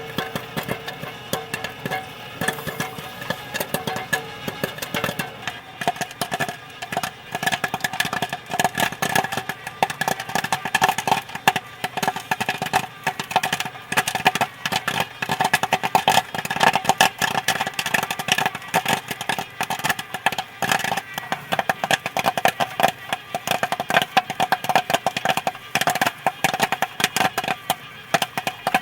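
Popcorn kernels popping in rapid, irregular pops that grow denser after the first several seconds, over a steady hum.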